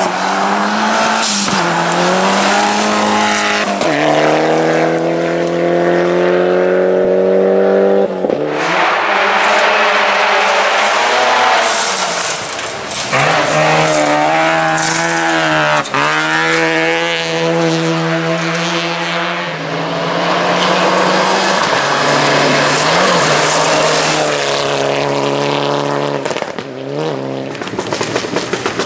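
Classic rally car engine at full throttle, revving up through the gears: its pitch climbs and then drops sharply at each gear change, several times over.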